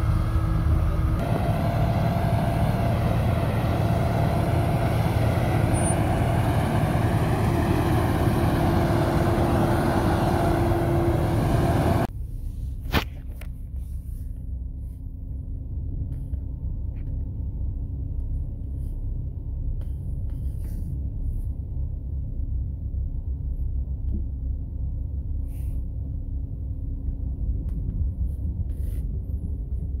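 Volvo wheel loader's snowblower attachment running hard, a loud steady noise of engine and blower as it throws snow into a dump truck. About twelve seconds in this cuts abruptly to a quieter low rumble of a car's engine and tyres heard from inside the cabin, with a sharp click just after.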